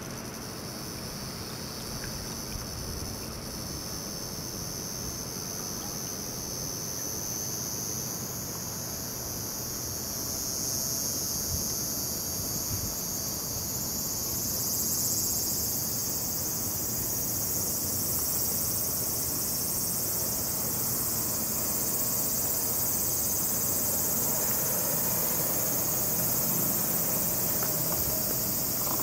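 A steady, high-pitched insect chorus, growing louder from about halfway through, over a low outdoor rumble.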